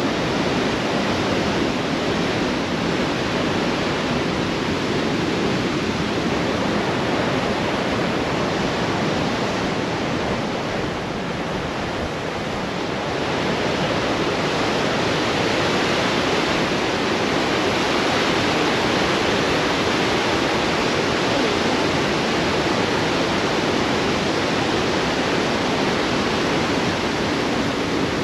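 Androscoggin River's Great Falls in high water: a loud, steady rushing of whitewater pouring over the rapids and falls, easing slightly for a moment a little before halfway.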